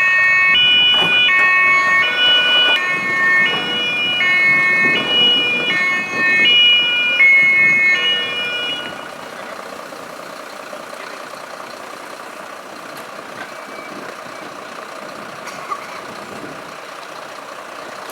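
German two-tone emergency-vehicle siren (Martinshorn), switching between a high and a low note about every half second, then cutting off about eight and a half seconds in. After that there is only the steady running of a vehicle engine.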